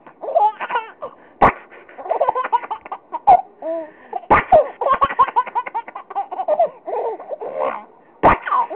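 Baby girl laughing and giggling in short bursts of squeals and chuckles, with a few sharp pops between laughs.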